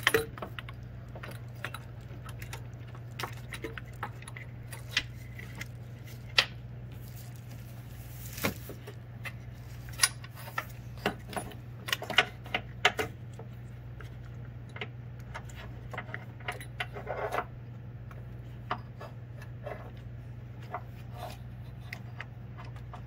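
Scattered metallic clicks and clinks of a new serpentine belt tensioner and its pre-inserted bolt being worked into place by hand against engine parts, over a steady low hum.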